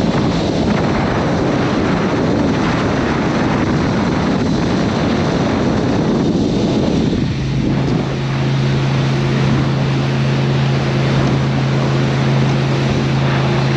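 A 27-foot Baja powerboat under way: engine running with water rushing past the hull and wind on the microphone. About halfway through, a steady low engine drone comes through plainly over the rush.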